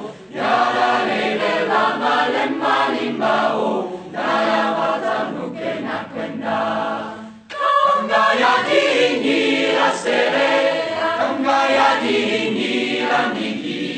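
Choir singing a Catholic hymn in the Taita language, in sustained phrases with a short breath break about seven and a half seconds in.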